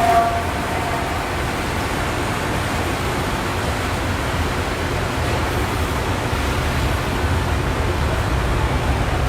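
Steady hiss and low rumble of factory background noise, even in level throughout.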